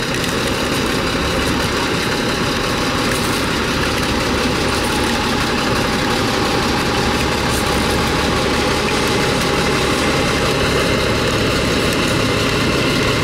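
Heavy diesel engine of a Kenworth off-highway rock truck idling steadily.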